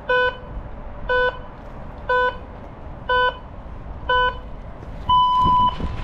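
Orienteering start clock counting down: five short beeps a second apart, then one longer, higher beep about five seconds in that gives the start signal.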